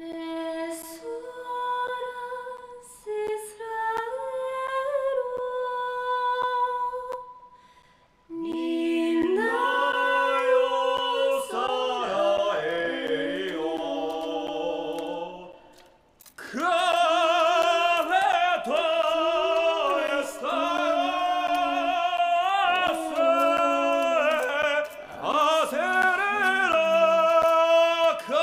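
Mermaid song: a high woman's voice singing long held notes. After a short break a man's voice joins in, singing along with the women's voices in harmony, with another brief pause about halfway.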